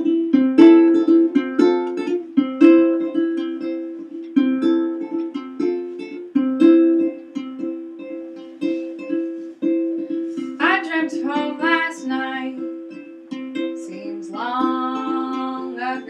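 Acoustic folk music: a ukulele strumming chords over sustained piano-accordion chords. About ten seconds in, and again near the end, harmonica phrases with bending notes join in.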